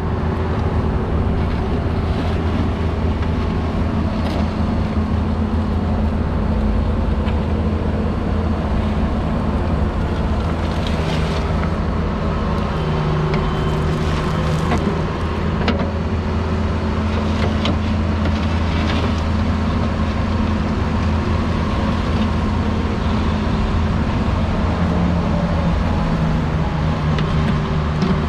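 An engine running steadily, its pitch shifting slightly a few times as the load changes, with scattered light clicks and knocks over it.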